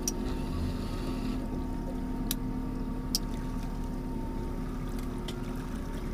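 A 90 hp outboard motor running steadily at trolling speed, a low even drone with water wash. A couple of sharp clicks come in the middle.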